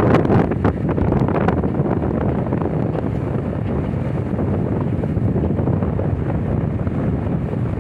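Wind buffeting the microphone as a steady low rumble, with a few sharp clicks in the first second and a half.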